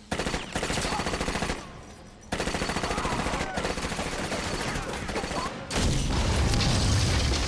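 Rapid automatic rifle fire, several guns at once in long bursts. There is a short lull at about two seconds, and from about six seconds on the firing grows louder and deeper.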